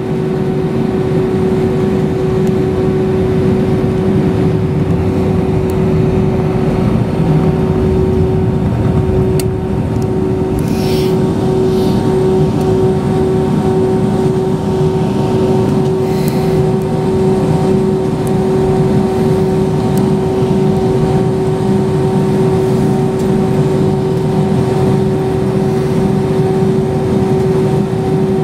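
Airbus A320's IAE V2500 turbofan engines running at low taxi thrust, heard inside the cabin over the wing: a steady drone with a constant whine and low rumble.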